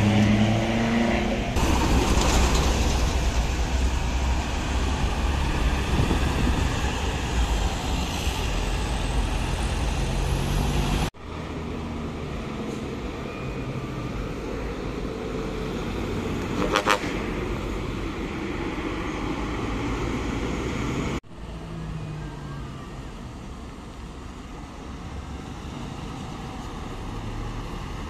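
Heavy vehicles and small mountain buses driving past on a hill road, their engines running hard. The sound drops off abruptly twice, and a brief sharp sound comes about two-thirds of the way through.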